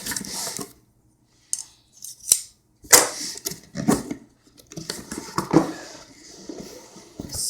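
The seal on a cardboard box being cut and torn open: a string of irregular scrapes, snips and rustles with short pauses, and one sharp click a little past two seconds in.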